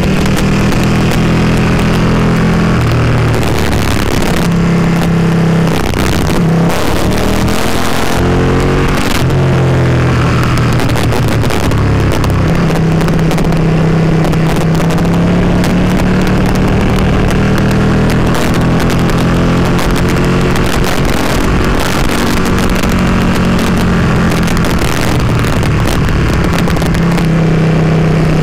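Motorcycle engine running under way on a climbing road, its revs stepping and gliding up and down through the bends, under a heavy rush of wind on the microphone.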